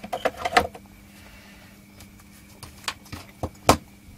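Clatter, then a handful of sharp clicks and knocks as a small power-supply circuit board and a capacitor are handled on a workbench, the loudest knock near the end, over a faint steady hum.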